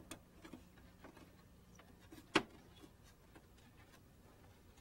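Faint plastic clicks and knocks as the LaserWriter Pro's plastic rear panel is swung shut and seated against the case, with one sharper click about two and a half seconds in, over a faint steady hum.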